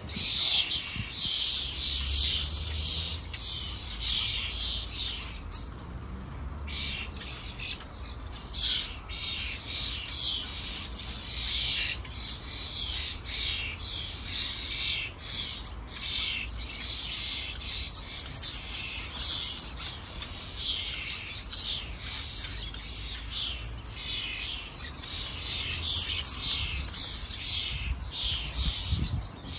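Several garden birds chirping and singing without a break, quick high chirps overlapping one another, over a low rumble.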